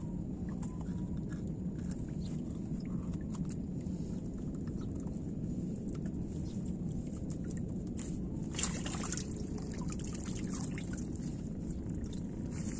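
Lake water trickling and sloshing around a fishing net hauled into a boat by hand, with scattered small clicks over a steady low rumble. A brief louder burst comes about eight and a half seconds in.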